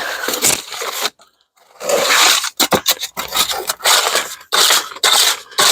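A tool scraping and churning through wet concrete mix in repeated short strokes, with a brief pause about a second in.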